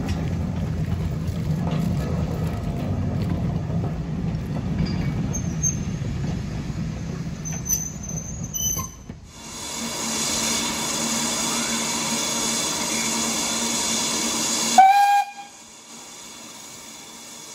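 Coaches of a passing train rolling by with a low rumble for the first nine seconds or so. Then BR Standard Class 4 steam locomotive 75069 standing with a loud, even steam hiss, one short whistle blast about fifteen seconds in, and after it a much quieter hiss.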